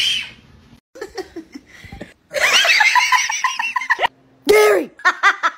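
A person laughing hard in quick repeated bursts, broken by a short pause, with a few more short laughs near the end.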